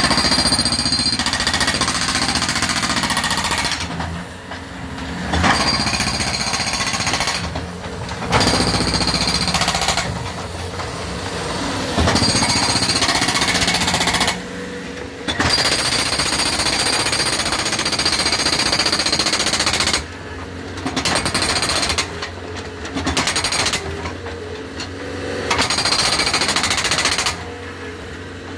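Bobcat T190 track loader's hydraulic breaker hammering concrete in long runs of rapid blows, stopping briefly every few seconds. The loader's diesel engine runs steadily underneath.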